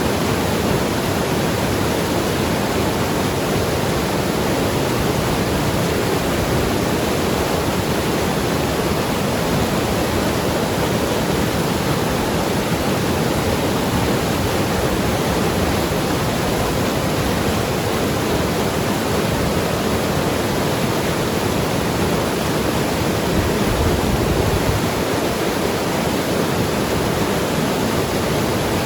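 Mountain river rushing and tumbling over rocks: a steady, dense water noise.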